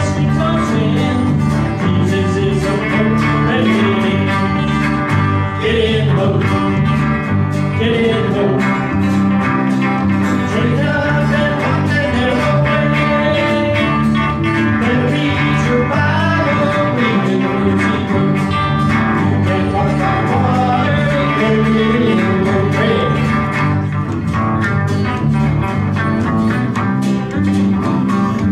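A live country-gospel band playing: strummed acoustic guitar and electric bass under an electric guitar lead line whose notes bend in pitch.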